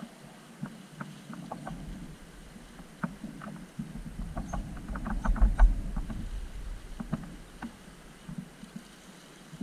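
Scale RC rock crawler working over rocks and gravel: irregular small clicks and knocks of tyres and chassis on stone, with low rumbling that swells in the middle of the stretch.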